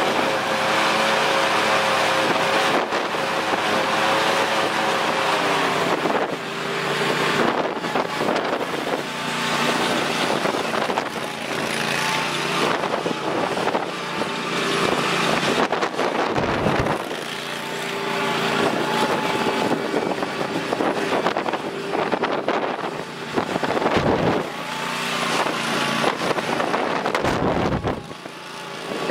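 2012 Country Clipper zero-turn mower's Kohler 725 cc two-cylinder gas engine running. Its pitch holds steady at first, then shifts about six seconds in, and the sound dips briefly several times.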